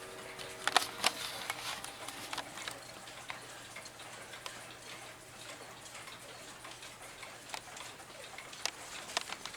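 Ridgeway corner grandfather clock ticking steadily as its pendulum swings, with a couple of louder clicks about a second in.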